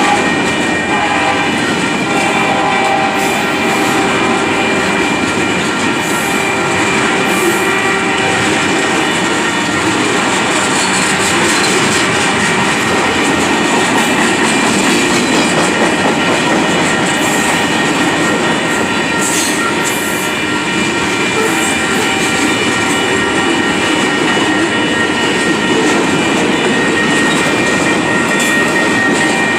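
Heavy freight train's cars rolling past, the wheels clattering over the rail joints, with a steady high-pitched ringing squeal from the wheels.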